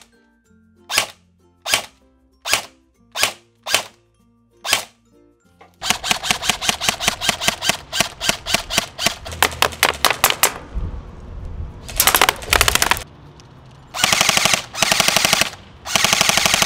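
Valken ASL M4 airsoft electric gun (AEG) firing: six single shots under a second apart, then rapid fire from about six seconds in, with long full-auto bursts near the end.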